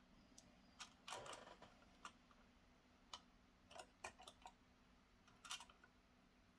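Near silence broken by faint, scattered light clicks and taps from hands handling computer hardware, with a faint steady low hum beneath.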